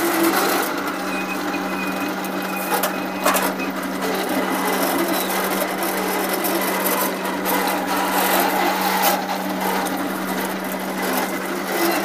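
Electric rubber-sheet roller machine running with a steady hum as its rollers press slabs of coagulated latex into thin sheets, with a sharp knock a little over three seconds in.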